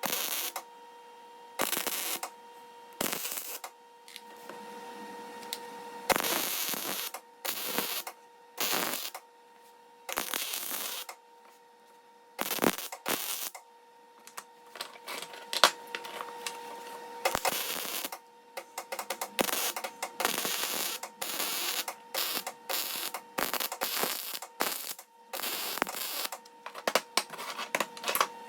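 MIG welder tacking small rods to a half-inch nut: short bursts of arc crackle, each under a second or so, with pauses between. The bursts come quicker and closer together in the second half. A steady hum runs underneath.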